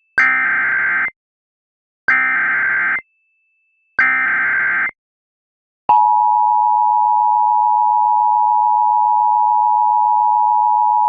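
Emergency Alert System SAME header: three bursts of screechy data tones, about a second each and a second apart. About six seconds in, the steady two-tone EAS attention signal begins and holds, announcing an emergency alert.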